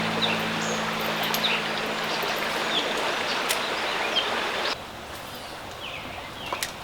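Creek water running steadily, with short bird chirps over it; the rush drops abruptly quieter about two-thirds of the way through.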